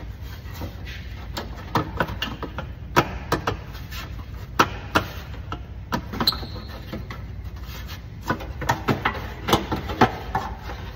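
Sheet-metal exhaust heat shield on a Mercedes Sprinter being worked up into place by hand, scraping and clattering against the exhaust and underbody in irregular taps and knocks, with a short metallic ping about six seconds in.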